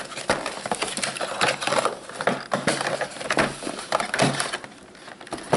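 Cardboard product box being opened and handled: irregular scraping, crinkling and small knocks of the box and its flap, quieter for a moment near the end.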